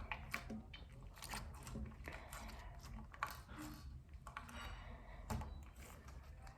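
Beaded slime being squeezed and worked by hand: faint, irregular small clicks and squishes.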